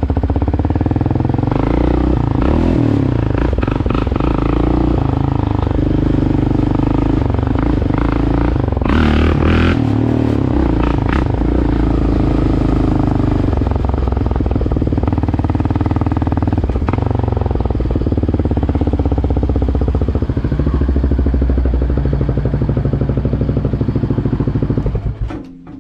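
Yamaha Raptor 700R ATV's single-cylinder four-stroke engine running under way, its pitch rising and falling with the throttle. A brief hiss about nine seconds in; the engine sound drops away sharply near the end.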